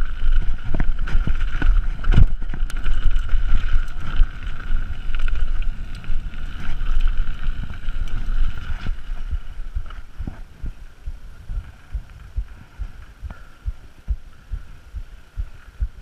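Mountain bike riding fast down a dirt trail: wind rumbling on the microphone, with many knocks and rattles from the bike over bumps and a steady high buzz throughout. It all grows quieter after about ten seconds.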